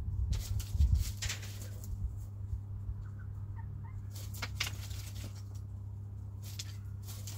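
Chickens pecking and scratching in their coop: scattered sharp clicks and scuffs, with a few faint soft clucks about three seconds in, over a steady low hum.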